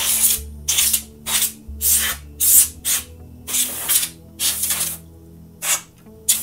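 Can of compressed air blowing short spurts into a desktop PC case to clear dust from its fans and heatsink: about ten separate hissing blasts, one near the middle a little longer than the others.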